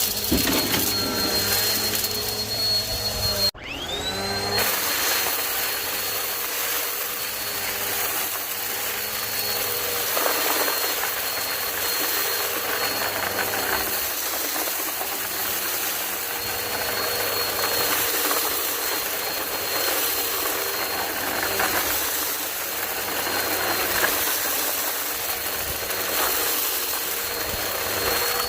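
Vacuum cleaner running steadily with a high motor whine and a lower hum. About three and a half seconds in it cuts out for a moment, then the whine climbs back up to speed.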